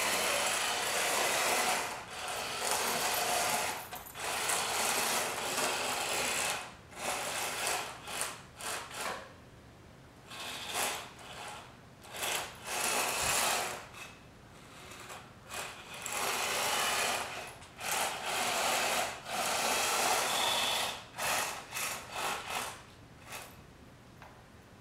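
Small hobby robot's electric drive motors running in stop-start bursts of varying length and strength as it drives across a hardwood floor, its speed set by PWM from a game controller's joysticks.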